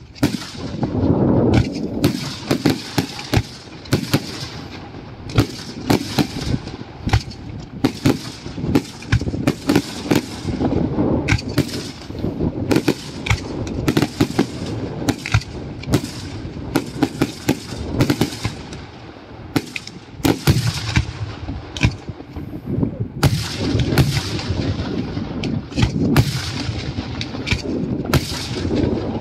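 Daytime fireworks display: aerial shells bursting in quick succession, a continuous run of sharp bangs two or three a second, with a low rumble carrying between them.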